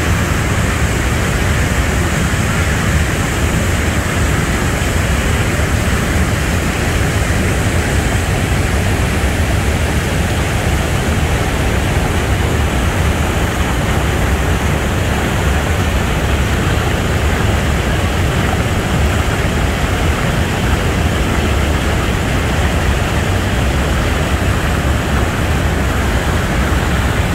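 Bridal Veil Falls at Niagara: a large volume of water plunging over the crest, with the river rushing through rapids at the brink. It makes a loud, steady, unbroken rushing noise, heaviest and deepest in the low end.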